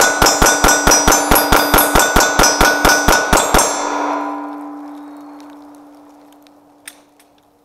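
Rapid fire from a 9mm pistol: about eighteen shots in three and a half seconds, with steel targets clanging as they are hit. After the last shot a steel plate keeps ringing at one steady pitch while the echo dies away over a few seconds.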